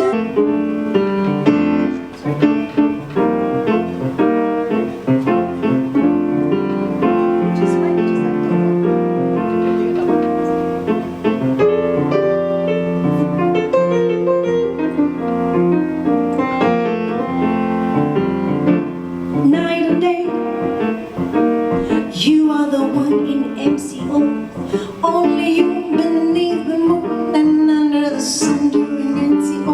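Live band playing an instrumental passage with no vocal, the piano to the fore.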